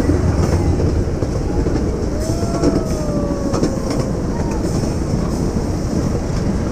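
Ride-on miniature railway cars rolling along the track with a steady rumble and rapid clickety-clack from the wheels. About two seconds in, a thin, slightly falling wheel squeal sounds for a second or two.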